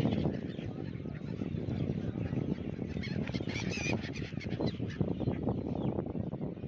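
Poultry birds calling, with a cluster of high squawks about three seconds in, over a steady low rumble.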